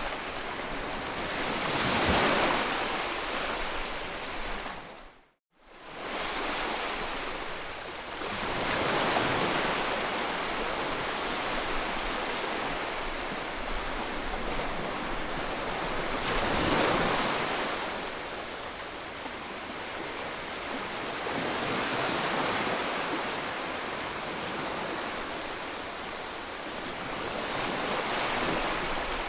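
Sea waves surging and breaking, swelling and ebbing every several seconds as each wave comes in. The sound cuts out briefly about five seconds in.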